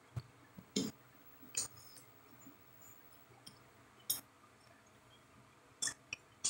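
Close-miked chewing of a mouthful of raw cabbage salad: faint, wet mouth clicks and smacks, about half a dozen at irregular intervals.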